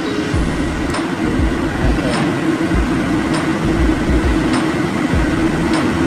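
Steady road and engine rumble inside a moving Toyota Fortuner's cabin, with irregular low thumps of air buffeting the microphone and faint ticks about once a second.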